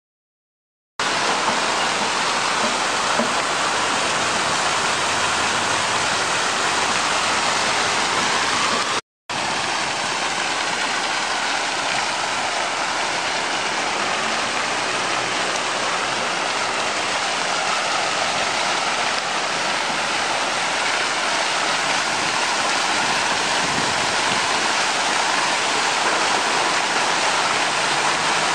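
Many small fountain jets splashing down into a shallow pool: a steady rush of falling water. It starts about a second in and drops out for an instant around nine seconds in.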